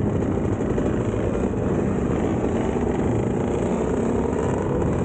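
Two-stroke dirt bike engines running as a group rides through city traffic: a steady, loud low rumble with rapid pulsing.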